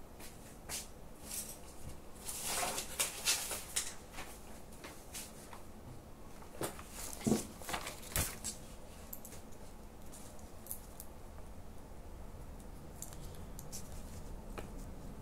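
Handling noises of small objects being picked up and moved: a burst of rustling about two to four seconds in, then a few sharp clicks and knocks around seven to eight seconds in, and faint ticks near the end.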